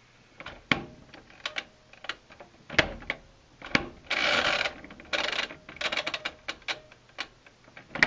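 Mechanical timer dial of a Whirlpool LXR9245EQ1 top-loading washer being turned by hand, clicking through its detents in a series of irregular clicks, with two short rasps in the middle.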